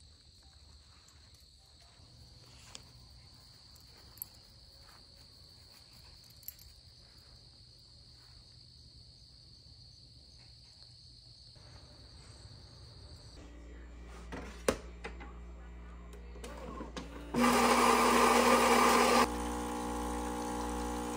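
Insects trill steadily on one high note for the first two-thirds. Then a Saeco automatic espresso machine runs: a loud grinding for about two seconds, followed by a steadier, quieter hum as it brews.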